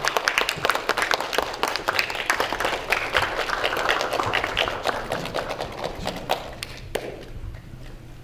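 Audience applauding with dense clapping that thins out and dies away about seven seconds in.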